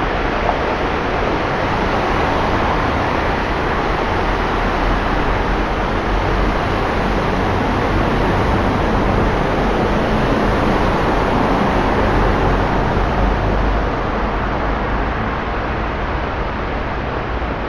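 Road traffic on a flooded, rain-soaked street: vehicle tyres hissing and spraying through standing water. The noise swells in the middle and eases toward the end.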